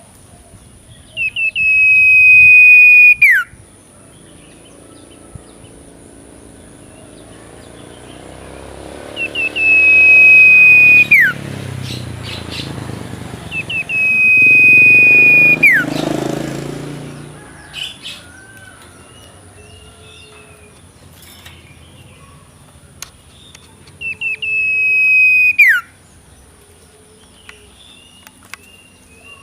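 A young pet bird giving four long whistled calls, each about two seconds. Each call slides up briefly, holds one steady pitch, then drops sharply at the end. Softer chirps come between the calls.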